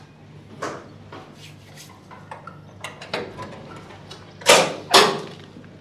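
A blue sheet-metal door being unlatched and opened: a run of irregular metallic clicks and rattles, then two loud clanks about half a second apart near the end.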